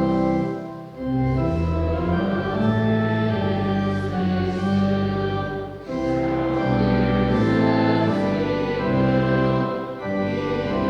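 Church organ playing slow, sustained chords in phrases, with short breaks between phrases about a second in, near six seconds and near ten seconds.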